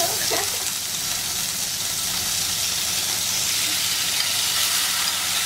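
Marinated chicken sizzling as it hits hot oil in a frying pan: a steady frying hiss.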